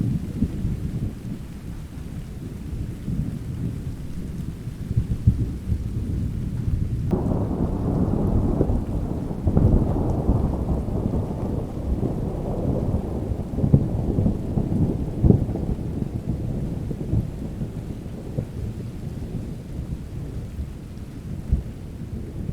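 Steady rain with low, rumbling thunder. About seven seconds in, a louder roll of thunder breaks in suddenly, crackles a few times, and dies away over the next ten seconds or so.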